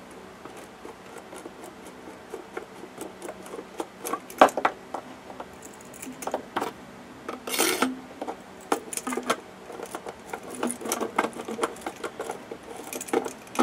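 Light irregular clicking and clinking of a small metal chain and a PVC pipe blade holder being handled, with a sharper knock about four seconds in and a brief scrape near the middle.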